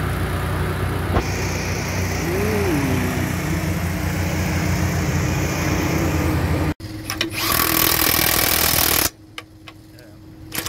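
A heavy machine's engine running steadily, then, after a cut about seven seconds in, a cordless impact wrench rattling on a bolt for about two seconds.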